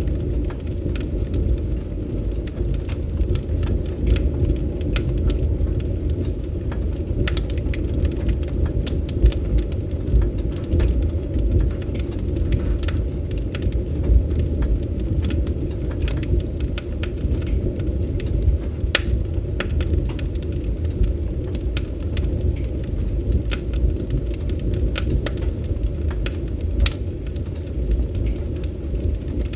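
Fire crackling in a fireplace: a steady low rumble of burning with frequent sharp crackles and pops, a few of them louder than the rest.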